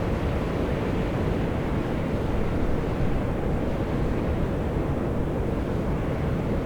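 Volcanic fumarole at Mt. Io (Atosanupuri) venting steam and gas under pressure: a steady, deep rushing hiss without breaks.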